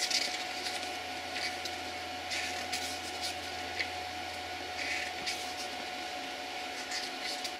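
Pages of a small paper instruction booklet being turned and flexed by hand, a series of short soft rustles over a steady background hum.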